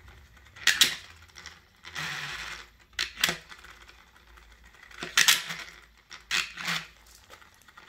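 Plastic spin-art spinner being spun by hand, noisy: irregular sharp plastic clacks every second or so, with a brief whirr about two seconds in.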